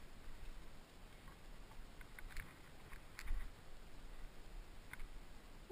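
A climber moving on sandstone: a few faint, sharp clicks and scuffs from climbing gear and hands on the rock, over a low, uneven rumble.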